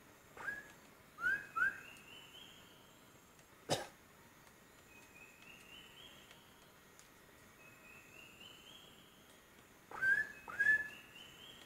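Short, sharp whistled notes that sweep quickly upward and hold briefly, heard five times: one faint note near the start, a pair about a second in, and another pair near the end. There is a single sharp click a few seconds in, and a faint stepped trill repeats in the background.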